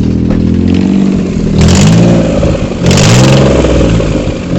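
Maruti Alto 800's three-cylinder petrol engine idling and revved up twice in short blips, with loud exhaust noise on each rise: the exhaust manifold studs are broken, so exhaust leaks at the manifold.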